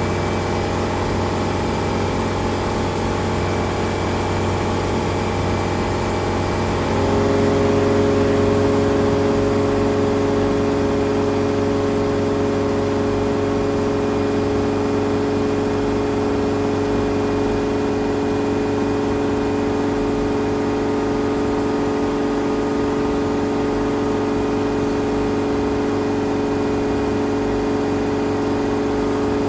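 Chrysler Crown M47S flathead straight-six marine engine running steadily in the boat's engine compartment; about seven seconds in, its speed steps up a little and then holds.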